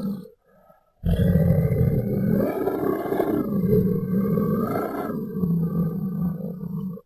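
Deep, rough monster growl sound effect. The end of one growl fades out just after the start. After a short pause, a second long growl runs for about six seconds and cuts off abruptly.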